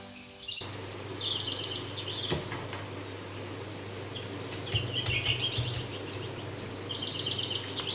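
Small birds chirping and twittering in short repeated trills, over a steady low hum.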